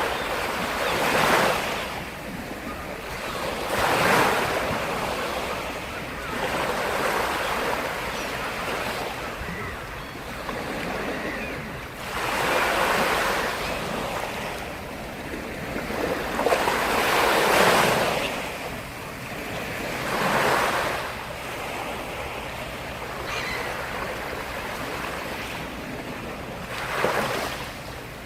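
Black Sea waves breaking on the shore, about six surges of surf that each rise and fall away into a wash, the loudest about halfway through.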